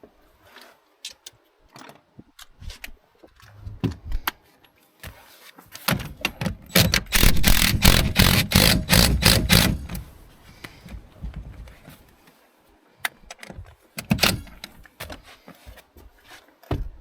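Impact driver running a nut home with rapid hammering for about three to four seconds, starting about six seconds in. Scattered clicks and knocks from tools and parts come before and after.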